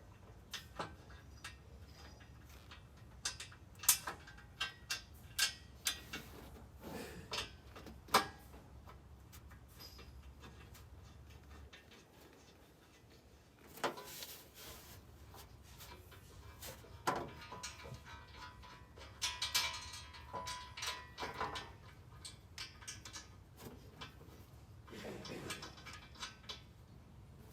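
Scattered metal clinks and knocks, with stretches of scraping and rattling, as a steel exhaust header is worked into place in a car's engine bay. A low steady hum in the background stops about twelve seconds in.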